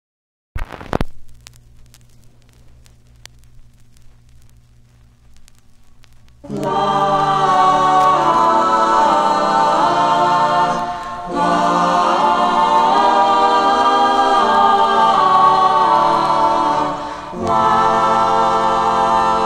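Turntable stylus set down on a vinyl LP with a thump about half a second in, followed by surface crackle and a low steady hum in the lead-in groove. About six and a half seconds in, the record's music starts: several voices singing together over a band.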